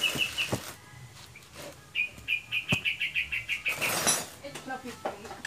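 A small bird chirping: a short call at the start, then a quick trill of about eight chirps a second lasting nearly two seconds. A few light metallic clicks and a brief hiss come through around it.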